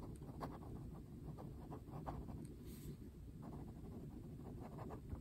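Fine-nib fountain pen writing cursive on notebook paper: faint, irregular light scratches of the nib moving across the page.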